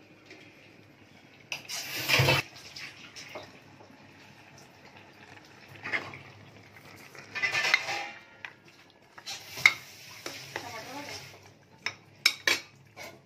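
Steel ladle and pressure cooker clattering in several short bursts as raw mutton is tipped into the masala and stirred, with a few sharp metal clinks near the end.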